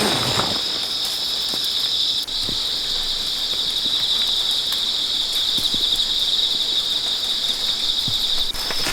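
Steady high-pitched trilling of an insect chorus, with a few faint knocks.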